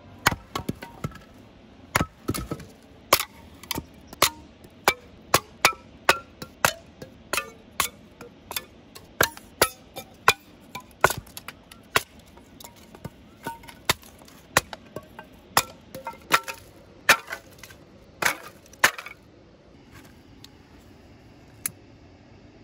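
Repeated sharp knocks of a log being split into kindling on a wooden chopping block, about one to two strikes a second, each with a brief wooden ring; the splitting stops a few seconds before the end.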